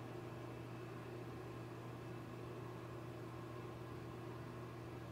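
Steady low hum with a faint hiss: room tone, with no other event.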